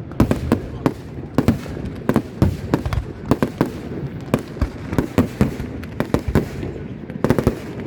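Fireworks display: shells and crackers bursting in quick, irregular succession, several sharp bangs a second, over a continuous low rumble.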